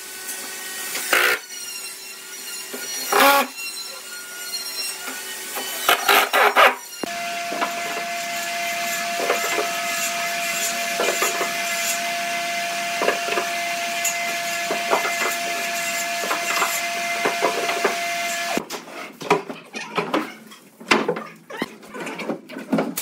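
Cordless impact driver driving screws into pine bed-frame rails in three short bursts, about one, three and six seconds in. After that a steady hiss with a constant whine and scattered knocks, and near the end a run of irregular wooden knocks and clunks as boards are handled.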